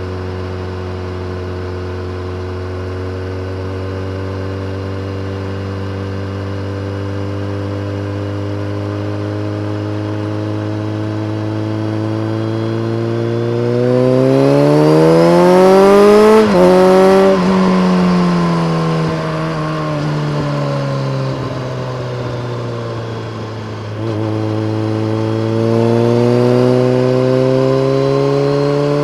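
BMW K1300R inline-four through a full Akrapovic race exhaust with a dB killer, running steadily at constant revs, then revving up under acceleration about halfway, with a quick upshift. The revs then fall away as the bike slows, and climb again near the end.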